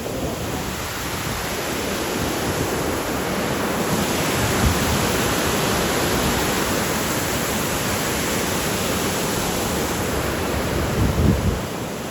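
Steady rushing of a river waterfall, growing a little louder about four seconds in. Wind buffets the microphone briefly near the end.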